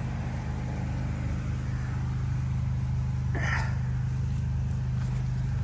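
Pressure washer running steadily, a constant machine drone under the hiss of the water jet, with a short swell of hiss about three and a half seconds in.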